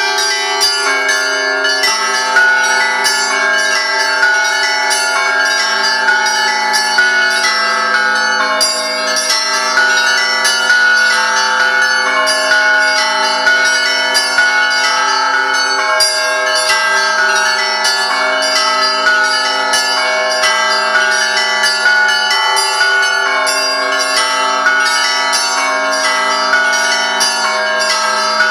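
Russian Orthodox church bell ringing (zvon): many bells at different pitches struck in a rapid, continuous pattern, their ringing tones overlapping.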